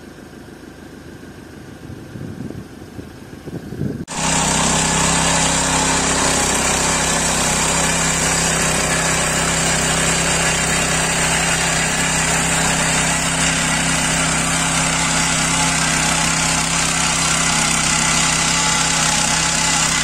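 Faint rustling for about four seconds, then an abrupt cut to a walk-behind rotary tiller running steadily under load, its engine holding an even note as the tines churn dry soil.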